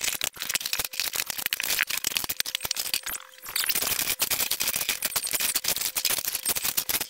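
Rapid, continuous clattering and clicking of toys being gathered and a broom sweeping the floor, with a short break a little over three seconds in.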